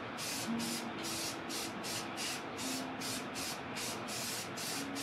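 Aerosol can of Rust-Oleum Professional gloss black spray paint hissing in rapid, even bursts, about four a second, as it is sprayed onto a Dana 44 rear axle.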